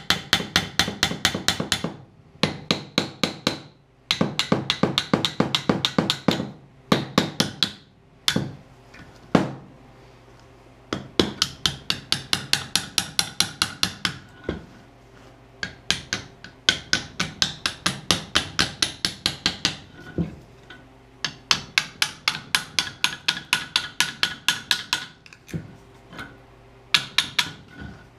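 Rapid metal-on-metal knocking on a connecting rod of a Subaru EJ25D crankshaft, about six knocks a second in runs of one to three seconds, with a ringing clink. The rod is being forced off the crank by rough handling, at the rod bearing that spun and failed.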